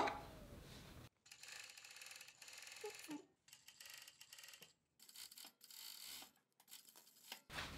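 A sharp click at the very start, then a Jack JK768DI industrial overlock machine (serger) running faintly, stitching a 3-thread overlock while its knife trims the fabric edge; it comes through as a quick mechanical ticking that drops in and out.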